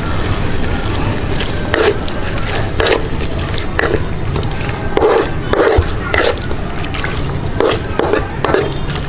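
Frog pieces, soybeans and sauce being stirred in a wok: a string of short wet sloshing, scraping strokes, roughly one a second, over a steady low rumble.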